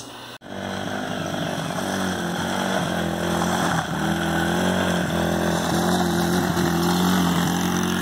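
Small engine of a kids' Chinese ATV running while it is ridden, starting about half a second in. The engine note holds fairly steady, with small rises and falls in pitch as the throttle changes.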